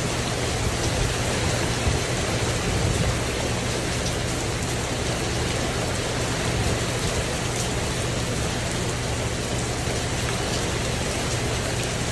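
Steady rain falling on a tin porch roof, an even wash of drops with slight swells in intensity.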